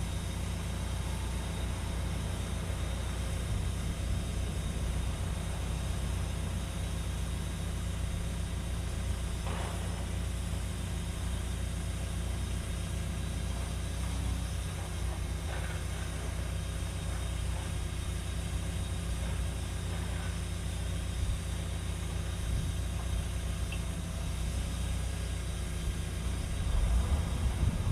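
Cat 314E excavator's diesel engine idling steadily, with a low, even hum; it gets louder near the end.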